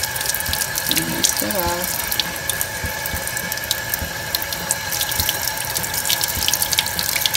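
Tap water running steadily into a sink and splashing over glass microscope slides as they are rinsed. This is the rinse that stops the alcohol decolorizer step of a Gram stain.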